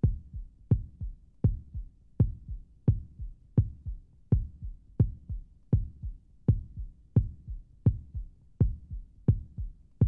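Intro sound bed of a steady, heartbeat-like low thudding pulse: a strong beat about every three-quarters of a second with softer thuds between.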